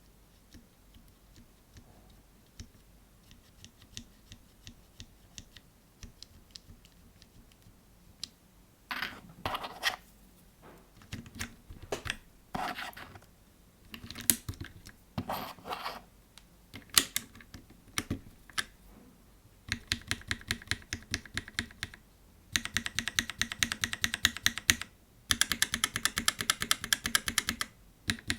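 Lubed linear mechanical keyboard switches with 72g springs being pressed: a few faint single presses at first, then louder clusters of keystrokes, and from about two-thirds of the way in, fast runs of rapid typing.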